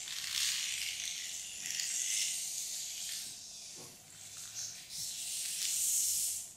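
Horror-film sound design: a hissing noise that swells and fades in waves, cutting off suddenly at the end.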